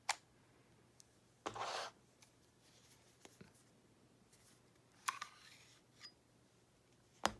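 Light metal handling noises from a CZ 75 SP-01 pistol as its slide is slid forward off the frame during field-stripping: a click at the start, a short scrape about a second and a half in, and sharper clicks about five seconds in and near the end.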